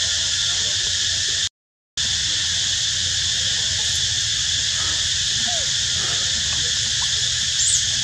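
Steady high-pitched hiss of an insect chorus. It cuts out completely for about half a second early on, and a brief high squeak sounds near the end.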